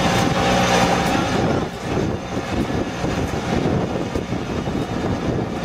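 Ride-on rice transplanter's engine and planting mechanism running as it works through a flooded paddy. A steady hum in the first second and a half gives way to a rougher, noisier running sound.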